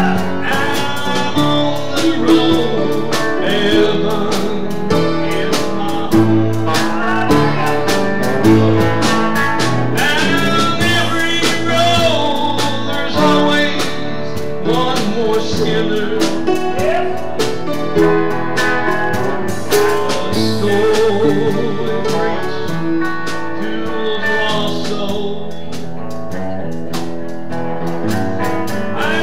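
Live country-gospel music led by an electric guitar played through an amplifier, with a steady beat and bending guitar notes.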